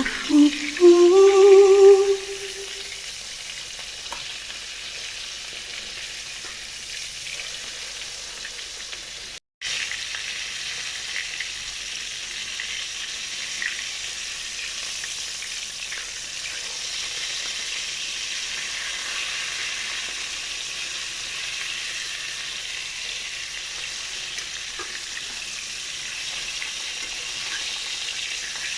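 Food frying in a pan, sizzling steadily, with a short gap about a third of the way in where the sound cuts out.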